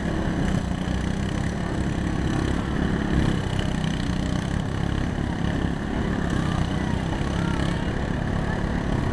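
Lawn mower engines running steadily under the chatter of a crowd.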